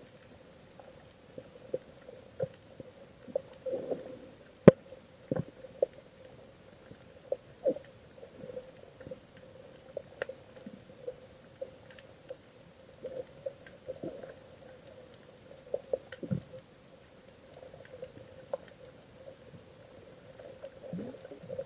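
Muffled underwater sound heard from below the surface: a steady low hum with irregular gurgling pops and clicks scattered throughout, the loudest a single sharp click about five seconds in.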